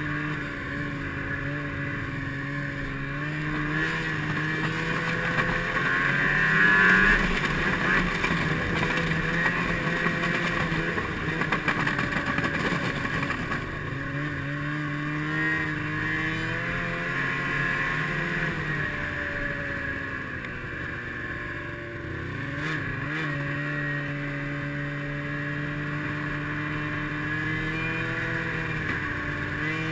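Snowmobile engine running under way, its pitch climbing and dropping several times as the throttle is opened and eased off; loudest about a quarter of the way in.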